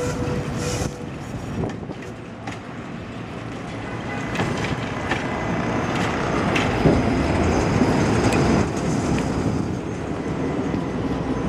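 Trams, a modernized Tatra among them, rolling over street track at a junction, steel wheels rumbling with scattered clacks over rail joints. The noise builds to its loudest a little past the middle as a tram passes close, then eases.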